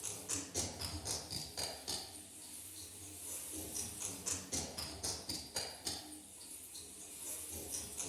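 Experimental concert piece of sharp tapping and rattling strokes, two or three a second in uneven clusters broken by quieter stretches, over a faint steady low hum.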